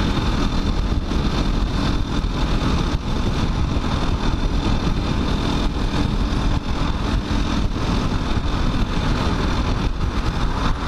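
KTM 500 EXC-F's single-cylinder four-stroke engine running steadily at highway cruising speed, heard through a microphone inside the rider's helmet with wind rushing over it.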